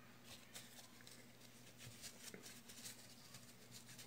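Near silence: room tone with a low steady hum and faint, scattered small scratches and clicks.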